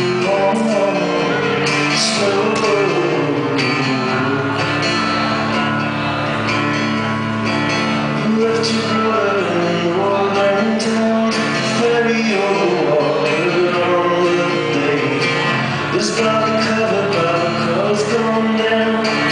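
A man singing live with his own acoustic guitar accompaniment, voice and guitar together at a steady level.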